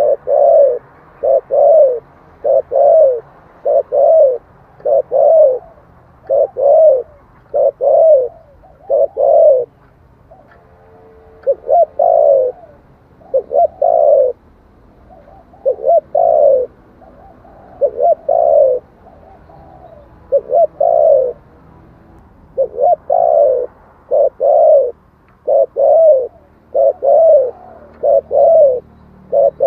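Spotted dove cooing as a decoy call: a fast series of short coos, about one a second, with a pause of a second or two about ten seconds in.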